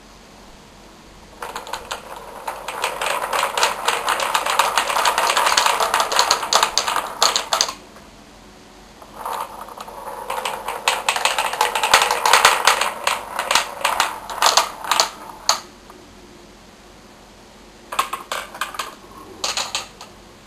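Balls rolling and clattering down the zigzag wooden tracks of a large wooden rolling ball clock: two long runs of rapid rattling clicks, about six seconds each, then two short bursts of clicks near the end.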